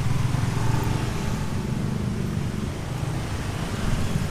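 Rush-hour road traffic: cars and motorbikes running past with a steady low engine rumble.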